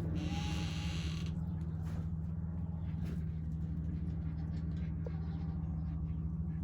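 Steady low hum, with a short hiss about a second long at the start.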